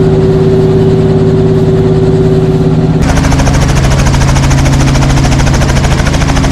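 Helicopter engine and rotor running at a steady loud pitch. About three seconds in, the sound switches abruptly to a different steady engine pitch with a fast, even beat.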